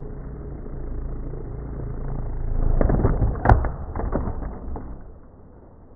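A DIY RC airboat's electric motors and propellers running across the water as a steady rumble that builds, then drops away about five seconds in. Near the middle come a cluster of knocks and one sharp crack as a motor breaks off the boat.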